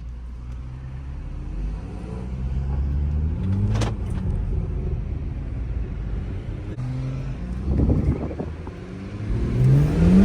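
Car engine revving hard under full-throttle acceleration, its pitch climbing in repeated pulls: once toward about four seconds in, again around eight seconds, and steeply near the end. The tires are spinning.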